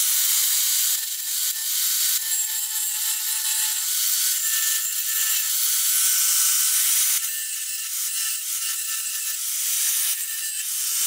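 Corded angle grinder running with its disc ground into the steel of a car's radiator support, cutting through the tack welds: a loud, steady grinding hiss over the motor's whine. The sound dips and shifts about seven seconds in.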